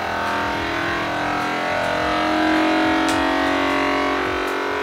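Vacuum sealer's pump running, drawing the air out of a bag of dried kiwi slices, a steady hum whose tones shift a little as the bag pulls tight.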